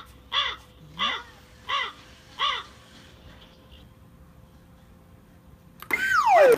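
A run of five harsh, crow-like caws, each a short arched call, spaced a little under a second apart. Near the end a loud falling whistle-like sweep sets in, with a burst of noise.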